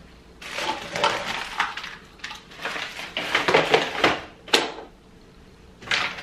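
Plastic bottles and containers clattering, knocking and rustling as they are moved about in a plastic cupboard organiser bin, with a sharper knock about four and a half seconds in and another near the end.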